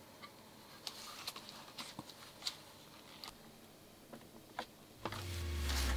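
Scattered light clicks and taps of small parts and tools being handled, then background music fades in about five seconds in.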